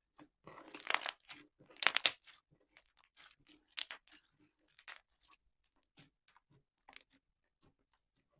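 Slime being squished and pressed by hand, giving crackling, crunchy squelches: two louder presses about a second apart near the start, then scattered small pops and clicks.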